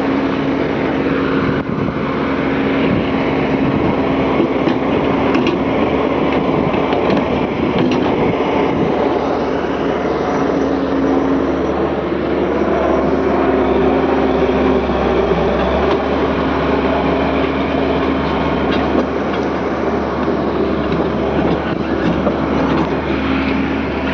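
L&T 130-class excavator's diesel engine and hydraulics running steadily under load as the machine works its way down off a truck, with a steady tone that drops in and out and a few sharp knocks and clanks.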